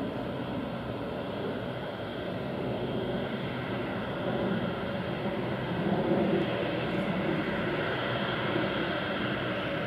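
Turboprop engines of an ANA Bombardier Dash 8 Q400 running as it taxis across the airfield, a steady drone that grows louder about halfway through.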